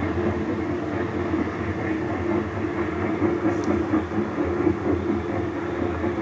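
Steady rumble of a helicopter's rotor blades and engine, heard from on board.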